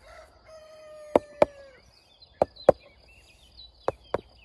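A mallet tapping flexible recycled Tetra Pak garden edging down into a slit cut in the soil: six sharp taps, two at a time, spaced a little over a second apart.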